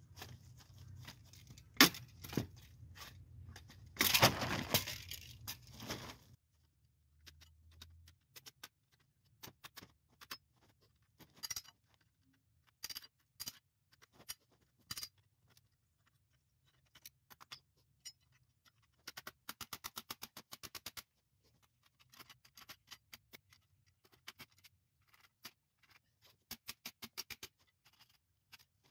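Hammer blows on metal at the hub of a Ford Model T rear axle, trying to free a stuck wooden-spoked wheel: scattered single strikes and, twice, fast runs of light taps. A burst of scraping and rustling in the first six seconds.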